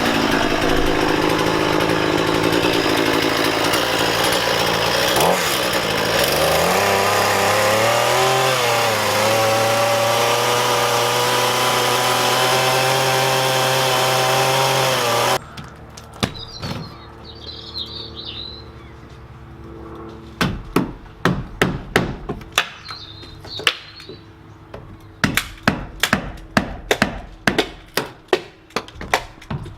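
Two-stroke chainsaw running under load, its pitch dipping and recovering as it cuts old timber, then stopping abruptly about fifteen seconds in. After a short pause with a bird chirping, a run of quick, sharp hammer blows on wood follows, about two or three a second.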